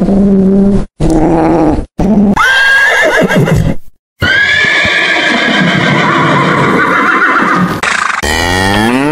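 Horse neighing: a short rising whinny about two seconds in, then after a brief break a long, wavering whinny lasting about four seconds. Two short low animal calls come before it, and a different low call begins near the end.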